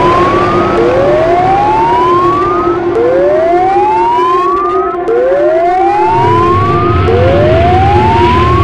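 Siren-like whoop sound effect: a rising wail that repeats about every two seconds over a steady lower tone, with a low rumble joining about six seconds in.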